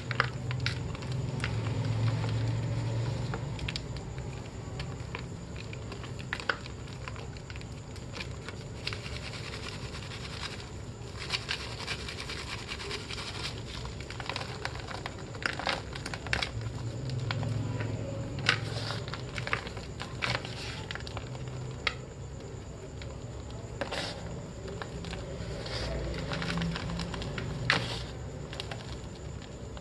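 Blocks of gym chalk being crushed and crumbled by hand in a small plastic basket: a dense run of dry crackles and crunches, with crumbs and powder pattering as they fall and are squeezed.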